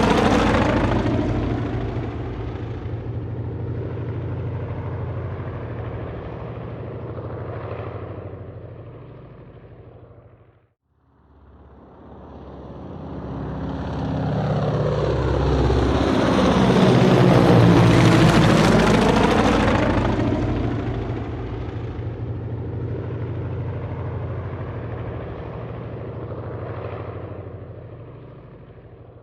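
Helicopter flying past: its rotor and engine noise fades away, cuts out abruptly about eleven seconds in, then builds up again to a loud pass about halfway through and fades off.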